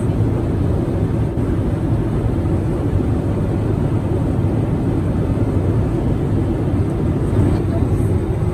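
Steady cabin noise inside a Boeing 787-9 airliner: an even, low roar with no changes.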